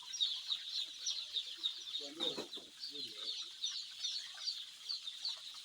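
A crowd of day-old CHI-breed chicks peeping constantly, many short high falling chirps overlapping. A brief lower sound comes about two seconds in.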